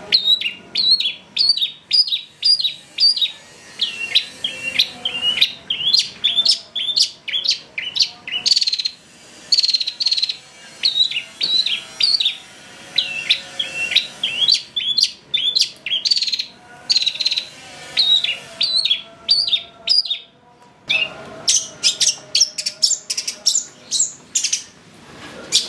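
Long-tailed shrike (cendet) singing in an excited, aggressive burst: loud, sharp, hooked notes repeated about two to three times a second. The bird breaks off briefly twice.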